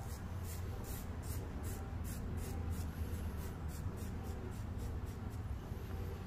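Straight razor slicing through a section of wet hair held between the fingers: a run of short, crisp scraping strokes, about three a second, with a low steady hum underneath.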